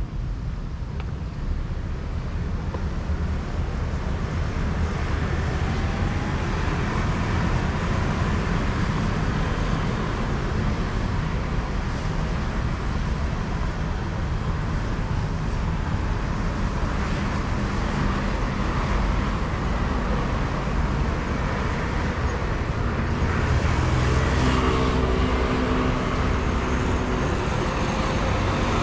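Street traffic of cars and motor scooters: a steady rumble of engines and tyres, with one vehicle's engine passing closer and louder a few seconds before the end.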